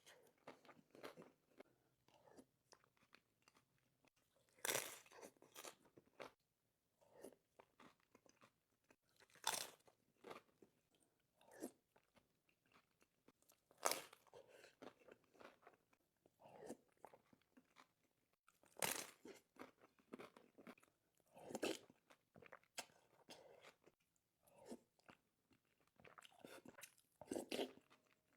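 Crunchy food being bitten and chewed: a crisp crunch every few seconds with quieter chewing crackles between.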